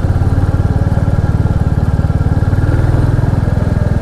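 Royal Enfield Classic 350's single-cylinder engine running under way, a steady, even exhaust beat.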